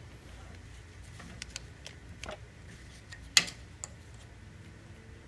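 Scattered light clicks and taps from soldering a tin patch onto a steel motorcycle fuel tank with an electric soldering gun, with one sharper click about three and a half seconds in.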